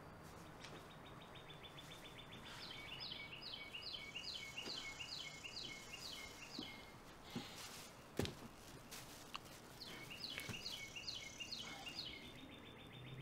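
Outdoor ambience with a songbird singing in two bouts, each a short trill followed by a run of chirps at about three a second. A single sharp click comes about eight seconds in.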